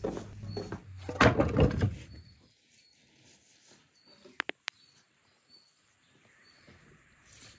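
Firewood logs knocked together and shuffled by hand, a loud irregular clatter for about the first two seconds. After that it is quiet apart from a small bird chirping faintly and repeatedly, and two sharp clicks about halfway.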